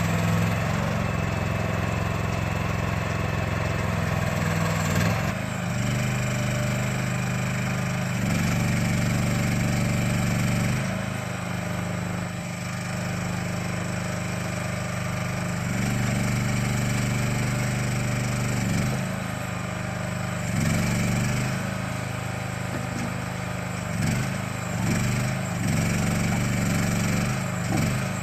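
Small engine of a towable backhoe running steadily while it digs, its note shifting up and down every few seconds as the hydraulics take and release load.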